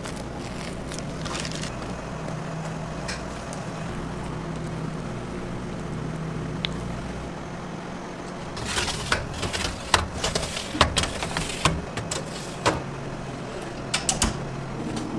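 Commercial bakery work sounds: a steady low machine hum throughout. From a little past halfway, a busy run of sharp knocks and clatter from trays and tools being handled, with two more knocks near the end.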